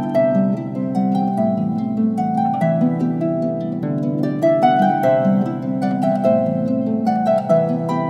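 Instrumental background music of plucked strings, a harp-like melody of ringing notes over held low tones.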